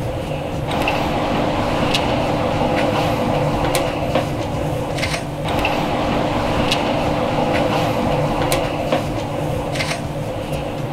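Dashi stock poured in a steady stream from a plastic measuring jug into an aluminium saucepan, over a steady background hum with a constant low tone and a few light clicks.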